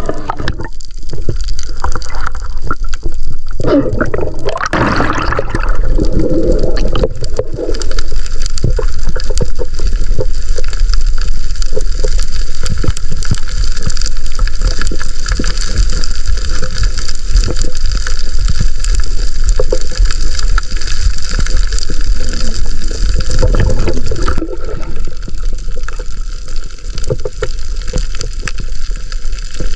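Underwater water noise: a steady muffled rush with many small crackling clicks throughout, and bubbling gurgles in the first several seconds.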